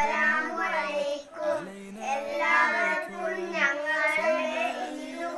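A group of young children singing together, with long held notes.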